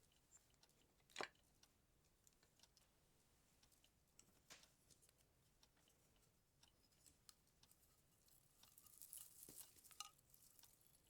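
Faint handling of Christmas tree ornaments: scattered light clicks and taps, one sharper click about a second in, and a brief rustle near the end.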